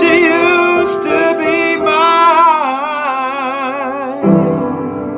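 Male singer holding the song's final long note with a wide, even vibrato over piano accompaniment; the note ends about four seconds in.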